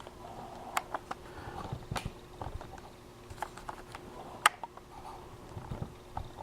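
Light handling sounds of rolling fried rolls by hand on a work surface: scattered soft clicks and taps, one sharper click about four and a half seconds in.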